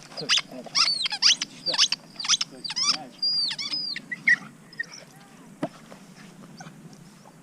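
Rapid run of high, squeaky animal calls, each sweeping steeply down in pitch, several a second, dying away about four seconds in; a single sharp click follows.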